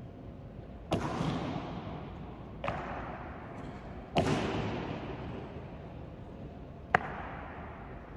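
Honour guard drill strikes: four sharp cracks, about a second, three, four and seven seconds in, each followed by a long echo.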